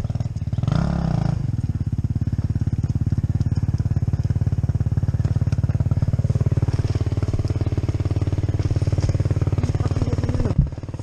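Dirt bike's single-cylinder engine idling steadily, with a brief blip of the throttle about a second in.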